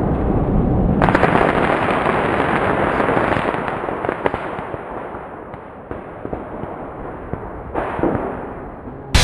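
Fireworks going off in a dense barrage of crackling pops and bangs, dying away gradually over the second half.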